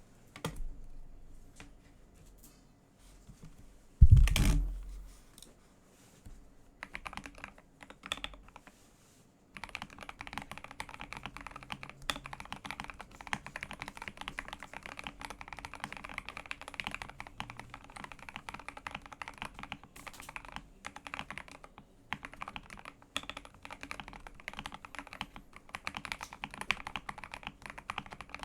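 Typing on a Keydous NJ80 mechanical keyboard with a brass plate, lubed Gateron Yellow Pro linear switches, foam and tape mods. A few scattered keystrokes and one loud thump about four seconds in, then fast, continuous typing from about a third of the way in.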